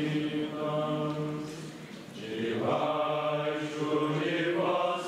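Men's voices chanting a liturgical chant in unison on long, held notes. They break for breath about two seconds in, then take up the next phrase.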